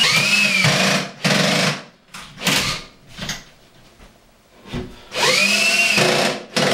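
Cordless drill with a Phillips bit driving wall anchors into pilot holes in a wall, in short trigger runs with a whine that rises and falls. It runs twice near the start, blips briefly in the middle, and runs again for a longer stretch from about five seconds in, as the second anchor goes in.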